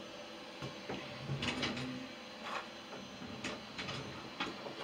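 A handful of quiet clicks and knocks of things being handled in a bathroom vanity, as a toothbrush and toothpaste are taken out.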